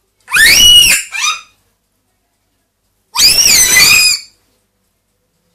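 A pet parrot screaming: two loud calls about three seconds apart, each about a second long, rising and then falling in pitch, the first followed by a short extra note.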